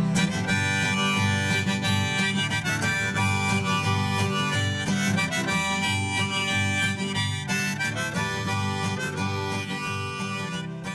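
Instrumental break in an acoustic folk song: a harmonica plays the melody over acoustic guitar, with no singing.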